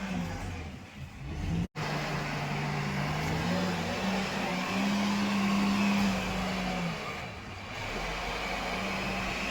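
Backhoe loader's diesel engine running under work, its engine speed stepping up and down several times. The sound cuts out abruptly for an instant a little under two seconds in.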